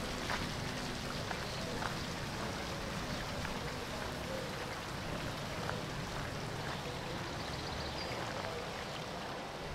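Steady outdoor ambient noise, an even wash with a few faint clicks.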